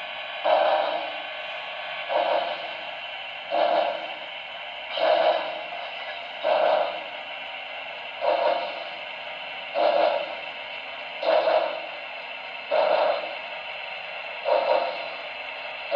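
Steam-locomotive sound from the DCC sound decoder of a Broadway Limited Imports HO-scale Pennsylvania Railroad T1 4-4-4-4 duplex, played through the model's small onboard speaker. Slow, even exhaust chuffs, about one every one and a half seconds, over a steady hiss, as the engine runs at a crawl.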